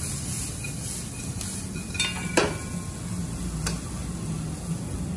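Broccoli and red onion sizzling in a wok, stirred and tossed with a metal spatula, with a few sharp clinks of the spatula against the pan, the loudest about two and a half seconds in.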